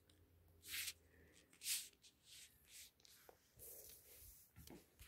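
Faint rustling and rubbing, in several short scrapes of a fraction of a second and one longer one near the end, over a faint low hum.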